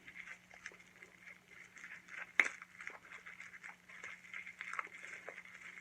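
Packaging being handled and opened by hand: faint rustling and scattered small clicks and taps, with one sharper click about two and a half seconds in.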